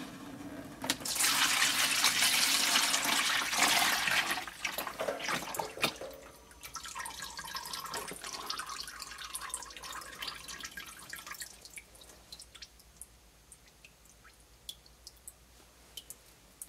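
Insulating oil from an X-ray head being poured from a pan into an empty plastic bucket: a heavy pour starting about a second in, thinning after a few seconds to a trickle and then to scattered single drips.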